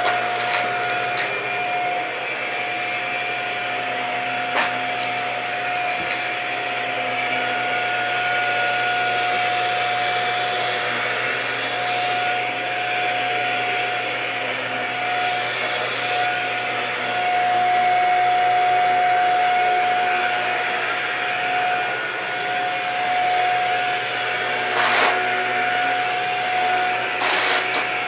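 Corded stick vacuum cleaner running steadily as it picks up scattered debris from a rug, a constant motor whine over airflow hiss. A few brief sharp clicks come through, two of them near the end.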